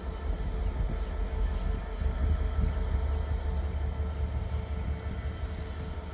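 A train running, with a steady low rumble and a faint hum of steady tones, and scattered short, sharp clicks.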